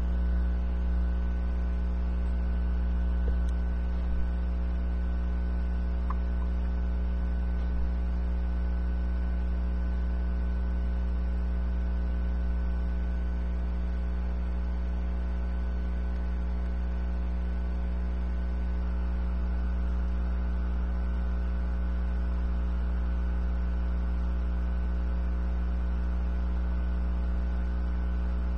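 Steady electrical mains hum: a strong low drone with a row of steady higher tones above it, unchanging throughout, with a few faint clicks in the first few seconds.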